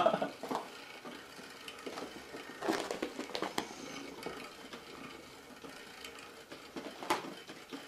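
A laugh trails off at the start, then a quiet room with a few soft, scattered knocks and rustles.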